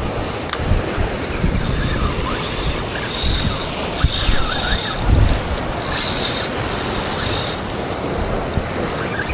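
Spinning fishing reel being worked, its mechanism clicking and whirring in repeated short bursts, over surf washing against rocks and wind on the microphone.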